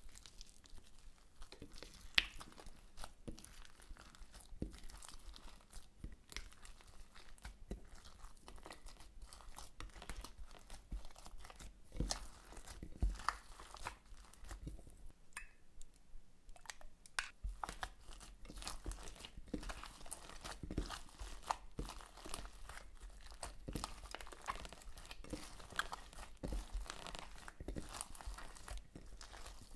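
Hands squishing and kneading slime mixed with foam and beads, making a dense run of small crackling clicks and pops, with a quieter stretch about halfway.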